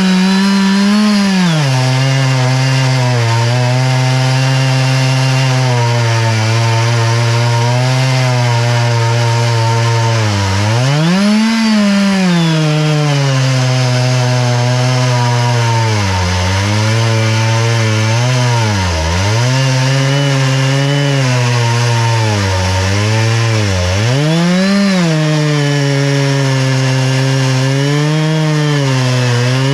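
Chainsaw engine running under load in an Alaskan chainsaw mill, ripping lengthwise through an oak log. The engine note holds steady but rises and sags several times, a third of the way in, about two-thirds in, and again soon after, as the cut loads it.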